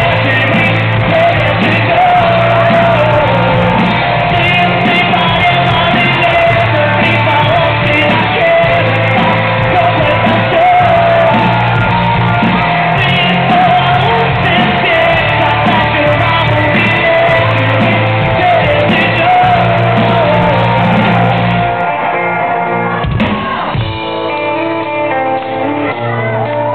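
Live rock band playing at full volume, male lead vocals over guitars, bass, keyboards and drums, heard through the PA in a large hall. About 22 seconds in the bass and drums drop out, leaving lighter held notes.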